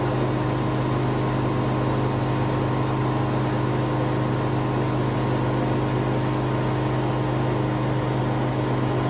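Harvest Right freeze dryer running in functional test with its vacuum pump and freezer refrigeration both on: a steady machine hum with a strong low drone. The vacuum is holding at about 1400 mTorr and will not pull lower, a pressure leak that the owner thinks is at the epoxy plug.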